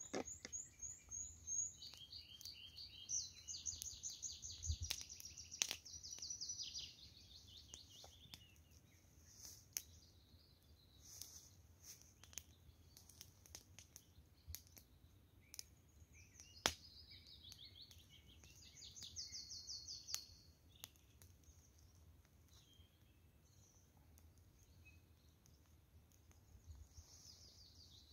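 Faint songbird song: repeated rapid, high trilled phrases in bouts, the longest at the start and another about two-thirds of the way through. Scattered sharp clicks sound throughout, the loudest just before the second bout.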